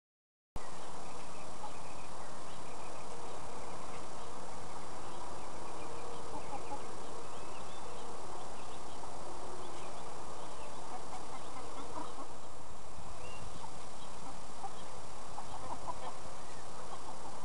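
Young Buff Orpington chickens giving short scattered calls over a steady background hiss, which starts about half a second in.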